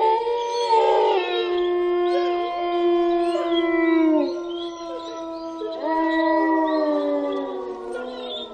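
Several long howls overlapping, each held on a steady pitch and sliding down at its end, with a fresh set of howls rising in about six seconds in and fading near the end.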